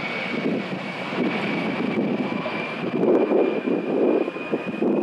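US Air Force A-10 Thunderbolt II's twin General Electric TF34 turbofans in flight: a steady high whine over a rushing jet roar that swells and fades.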